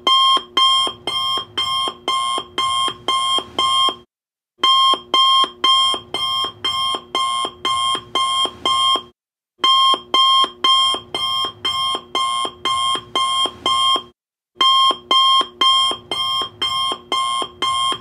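Alarm-clock beeping signalling that a countdown timer has run out: rapid bursts of about nine beeps, roughly two a second. The bursts repeat with short pauses about every five seconds.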